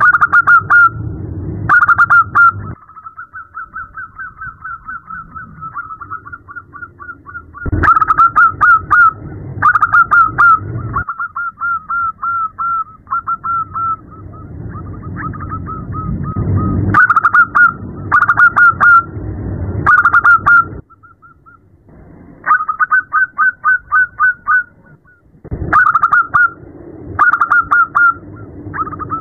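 Zebra dove (perkutut) calling: short phrases of rapid staccato cooing notes, loud phrases about a second apart alternating with softer, quicker trills. The uploader presents it as a female calling to attract a male.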